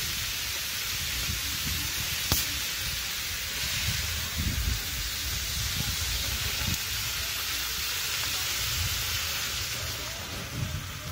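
A steady hiss, with one sharp click about two seconds in and low knocks of a plastic cola bottle being handled. Near the end, cola is poured from the bottle into a steel cooking pot.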